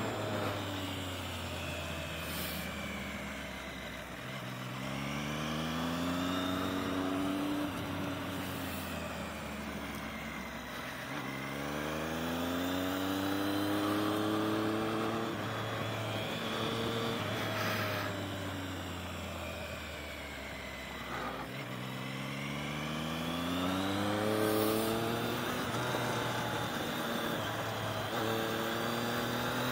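Motorcycle engine pulling hard through the gears, its pitch climbing in steps with a dip at each upshift, then falling away as the bike slows for the corners. This repeats several times over a steady rush of wind on the microphone.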